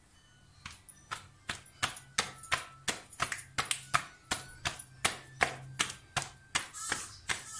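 Hands slapping a thin sheet of wheat-flour roti dough, patting it from palm to palm to stretch it: sharp, even slaps, about three a second, starting under a second in.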